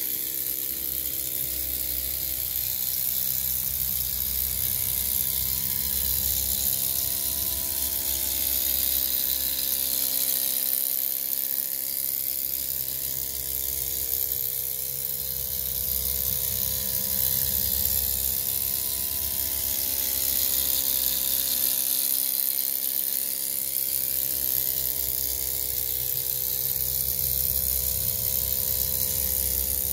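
Miniature live-steam roller model running under its own power across a metal bench: its tiny engine gives a steady, fast buzzing whir with a constant high hiss over it, swelling and easing slightly as it moves.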